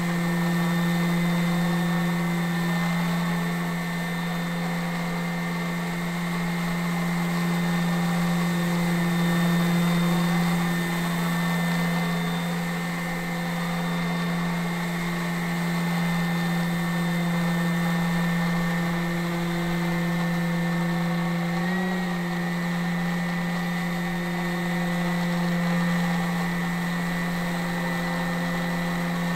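E-flite Carbon-Z Cessna 150 RC plane in flight, its brushless electric motor and propeller giving a steady whine. The pitch blips briefly about three-quarters of the way through.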